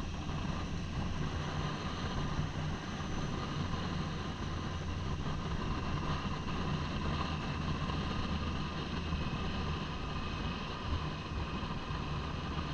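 Triumph motorcycle engine running steadily under way, with wind and road noise on the helmet-mounted microphone.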